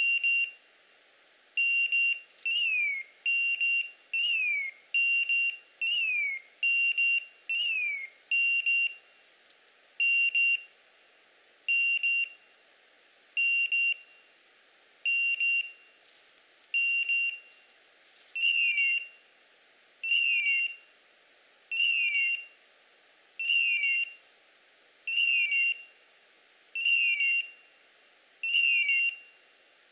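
Beeper collar on a pointing setter sounding its point-mode signal: short high beeps repeating at first a little more than once a second, then about every second and a half, many followed by a short falling chirp. The signal means the dog is standing still on point.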